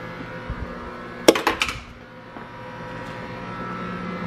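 A measuring spoon knocks a few times against a small plastic bowl about a second and a half in, as it is set down after stirring a cornstarch slurry. Underneath, a steady electrical hum.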